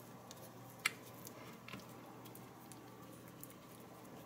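Fingers pressing and patting a soft dough top crust down onto a filled pie: faint squishing and light scattered taps, one a little louder just under a second in.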